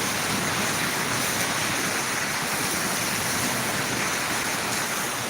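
Heavy rain falling, a steady, even hiss of water.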